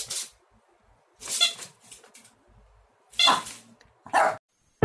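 Chihuahua barking in four short, sharp yaps, about a second apart.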